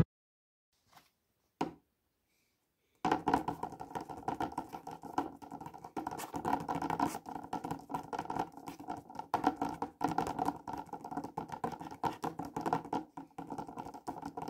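Fingertips tapping rapidly on a paper page of a spiral-bound sketchbook, mimicking piano playing. After a couple of faint taps, a steady patter of quick taps starts about three seconds in.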